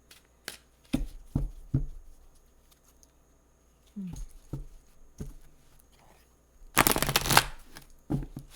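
A deck of oracle cards being shuffled by hand: scattered soft taps and slides of the cards, then a louder rapid flutter of cards for under a second near the end.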